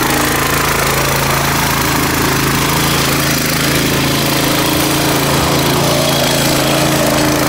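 A small engine running steadily at a constant speed, with no revving.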